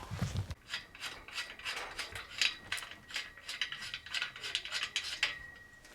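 M8 screw being threaded by hand into the kayak rack frame: a quiet, rapid and irregular run of small scraping ticks as the threads turn.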